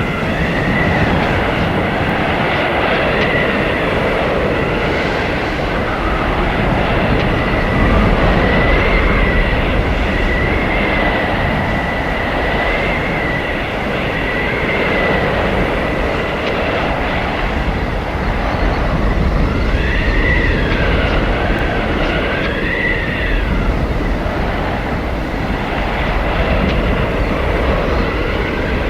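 Blizzard wind blowing hard with a steady rush and a thin, howling whistle that wavers and swoops up and down in pitch, most strongly about two-thirds of the way through.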